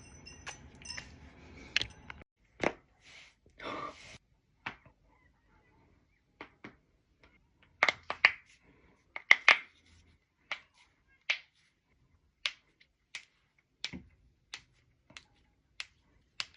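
Joints cracking during chiropractic adjustments: a series of sharp, separate pops spread unevenly, some close together in pairs.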